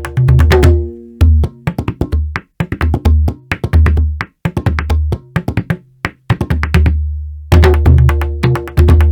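Sampled Indian percussion from the Native Instruments Discovery Series India Kontakt library, playing a rhythmic pattern of sharp strikes over deep booming drum notes. The full groove drops out about a second in, leaving sparser single hits, and comes back in full near the end.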